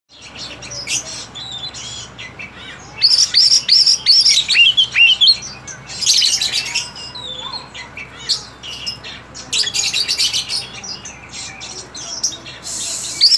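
Oriental magpie-robin (kacer) singing: quick runs of falling whistled notes mixed with scratchy, chattering bursts. It is a bird still learning to sing in full.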